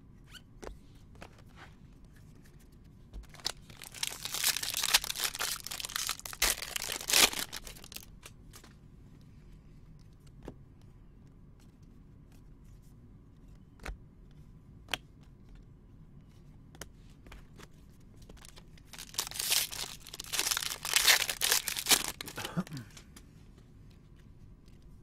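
2019 Bowman Jumbo baseball card pack wrappers being torn open by hand, twice, each a crinkly tearing stretch of about three seconds. In between come faint clicks of cards being flipped through.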